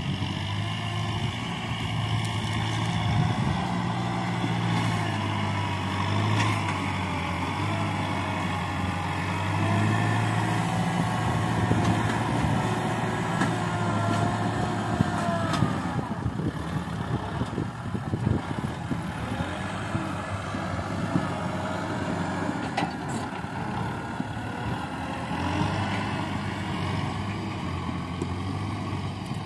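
Kubota M6040 tractor's four-cylinder diesel engine running under load as its front blade pushes soil. A higher whine wavers above the engine note, and there are a few sharp knocks along the way.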